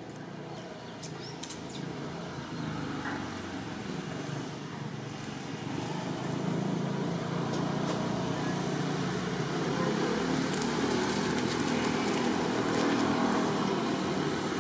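Steady low rumble of motor-vehicle noise that slowly grows louder, with a few faint clicks.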